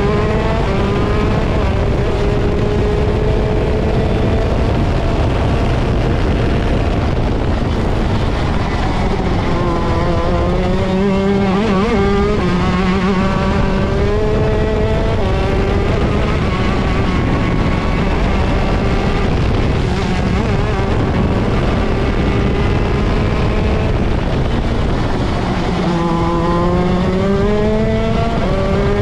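ROK Shifter 125cc two-stroke kart engine at racing speed. Its pitch drops under braking about ten seconds in and again about twenty-six seconds in, then climbs as it pulls back up out of the corners.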